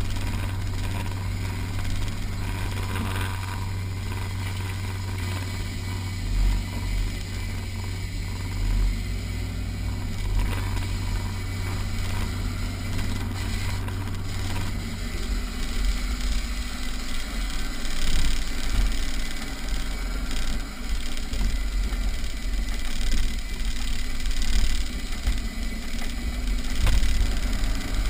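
Rally-prepared 4x4's engine running under load as it drives up a rough dirt track, with a steady low drone that drops away about halfway through. Low thumps and rattles come as the vehicle jolts over bumps.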